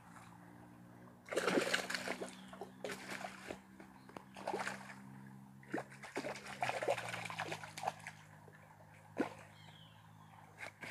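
A hooked fish splashing at the water's surface right at the bank as it is pulled in and grabbed, in repeated bursts starting about a second in and dying down near the end. A steady low hum runs underneath.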